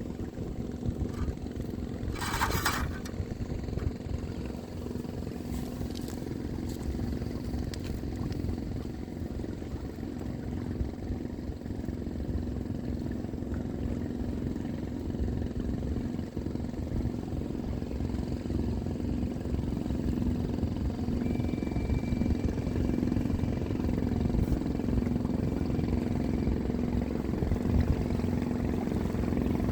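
Boat engine running steadily, growing a little louder toward the end, with a brief hiss about two seconds in.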